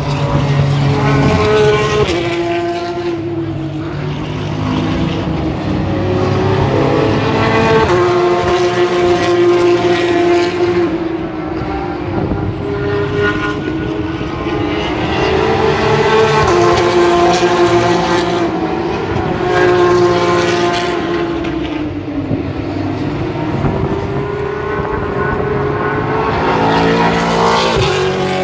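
Racing car engines at full throttle, several cars passing one after another: each note climbs in pitch, drops at a gear change and climbs again. The sound swells and fades every few seconds as the cars come by.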